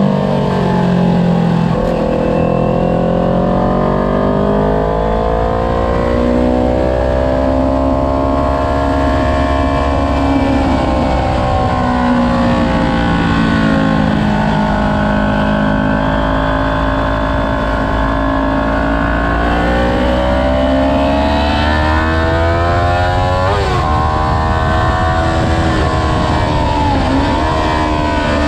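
Sport motorcycle engine under way on a track lap, its revs rising and falling with the throttle, with wind rumbling over the bike-mounted camera. The pitch jumps sharply twice near the end.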